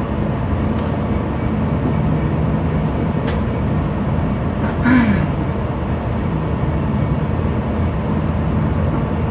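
Ship's main engine running ahead with a steady low rumble, mixed with a steady noise haze. A brief sound falling in pitch stands out about five seconds in.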